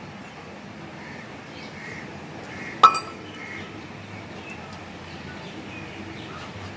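A single sharp clink a little under three seconds in, like a metal or glass object knocked, ringing briefly. A few faint short chirps come and go over a low background.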